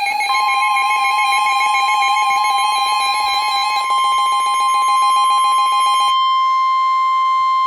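A weather radio's alert alarm sounding a rapid warbling beep, joined a moment in by the steady single-pitch warning alarm tone of NOAA Weather Radio. The warbling stops about six seconds in while the steady tone holds. Together they announce an incoming severe thunderstorm warning broadcast.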